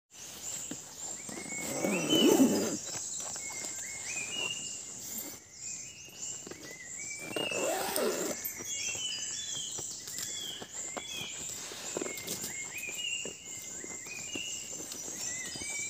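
Many birds calling back and forth in forest canopy: short notes stepping up in pitch, repeated over and over. Two louder, low-pitched calls come about two and eight seconds in, over a steady high hiss.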